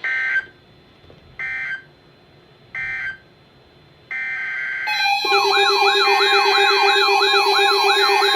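Emergency Alert System end-of-message signal from a NOAA Weather Radio broadcast: three short two-tone data bursts about a second and a half apart, marking the end of the warning. About five seconds in, a loud electronic siren-like alarm begins, its pitch wavering quickly over steady tones.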